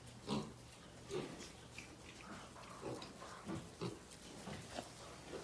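An animal giving short, low grunts, about ten of them at an irregular pace of roughly two a second, over a faint steady hum.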